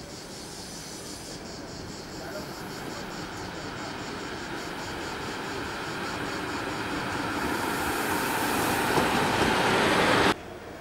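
Trenitalia regional push-pull passenger train, cab car leading, running into the station and passing close by: wheel and rail noise growing steadily louder, with a high hiss strongest near the end, then cut off suddenly.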